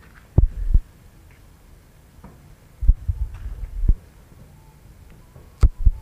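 Muffled low thumps and rumbles hitting the microphone in three short clusters about two and a half seconds apart, each starting with a sharp knock, over a faint steady background.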